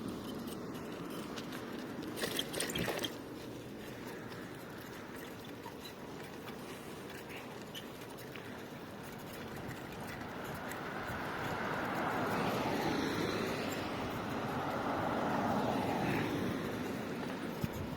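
A motor vehicle running, its noise swelling and easing off between about ten and seventeen seconds in, with a brief clatter about two seconds in.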